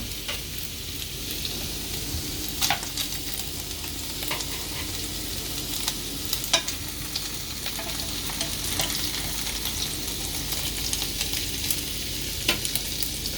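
Meatballs frying in a pan: a steady sizzling hiss with scattered sharp clicks, a few louder ones about two and a half, six and a half and twelve and a half seconds in.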